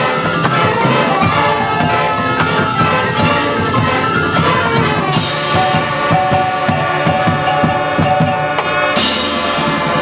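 Marching band playing: brass holding a chord-rich melody over drums, with a bright crash about five seconds in and another near the end.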